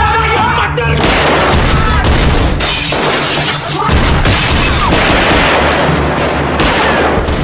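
Film shootout sound: sustained, rapid gunfire from pistols and other guns, shot after shot, over a steady low music score.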